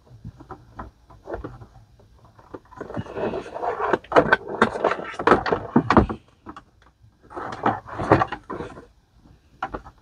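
Clicks, knocks and scraping of computer hardware being handled and fitted together, in two busy spells: one from about three to six seconds in, a shorter one around eight seconds.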